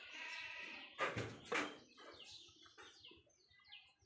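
A drawn-out bleat-like animal call lasting about a second, then two loud brief rustling noises. After that a small bird gives short, falling, high chirps about twice a second.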